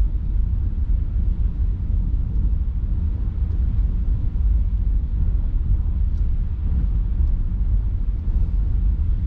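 Steady low road rumble inside a vehicle driving along a slushy ice road, with tyre and engine noise.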